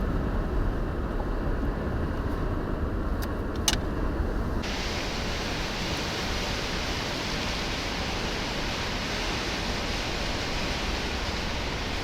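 Strong arctic outflow wind blowing over the microphone as a steady low rumble. About four and a half seconds in, a higher hiss comes in abruptly and stays.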